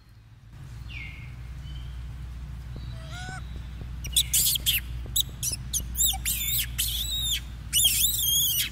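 A rapid series of high-pitched squealing animal calls, each rising and falling, starting about halfway through. A fainter call comes about three seconds in. Under them runs a steady low rumble.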